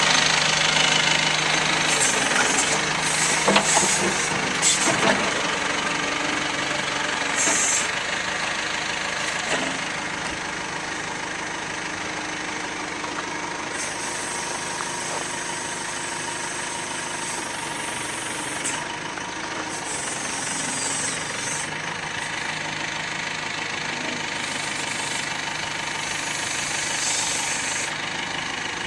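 Perkins 90 hp diesel engine of a 2004 Terex 760 backhoe loader running, with a few clanks in the first few seconds. It runs louder for about the first ten seconds, then settles to a steadier, quieter run.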